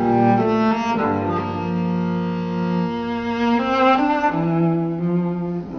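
Slow score of bowed strings, with a cello holding long low notes that change every second or two.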